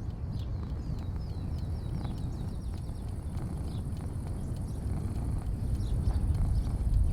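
Outdoor porch ambience: a steady low rumble that grows louder near the end, with small birds chirping, including a quick run of rapid repeated high chirps in the first two seconds. A faint, steady, very high hiss lies underneath.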